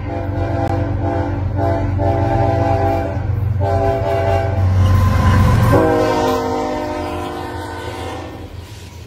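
A CSX diesel locomotive passes close by, sounding its multi-note horn in several blasts over a heavy engine rumble. About six seconds in, the horn's pitch drops as the locomotive goes past, and the sound then fades away.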